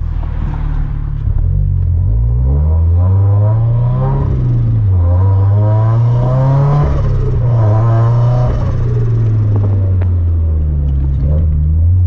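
Turbocharged Scion FR-S boxer four engine pulling hard under acceleration. The revs climb, drop twice at upshifts, then fall away as the throttle eases off.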